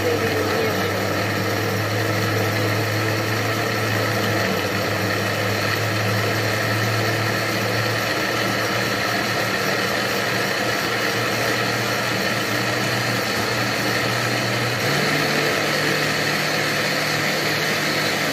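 Countertop blender motor running steadily as it purees a thick mixture of stewed greens, milk, fresh cheese and peanuts into a green sauce. Its hum steps up in pitch about fifteen seconds in.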